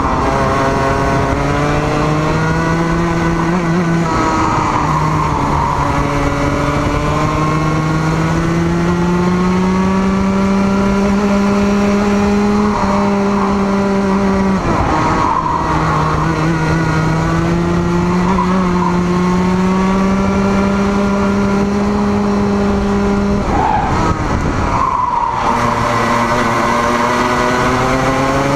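Racing kart engine heard from on board, running hard with its pitch climbing slowly along each straight. It drops sharply as the kart backs off, about 4 s in, about 15 s in and again near 24 s, where it goes ragged for a couple of seconds before it picks up and climbs again.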